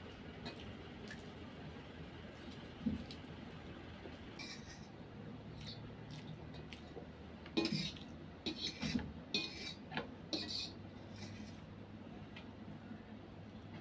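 Metal fork and knife scraping and clinking against a steel plate of noodles: a few scattered light clinks, then a cluster of scrapes between about four and eleven seconds in.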